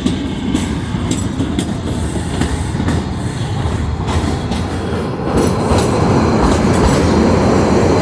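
Kalka–Shimla narrow-gauge toy train running, a steady rumble with the wheels clacking over rail joints. The rumble grows louder about five seconds in.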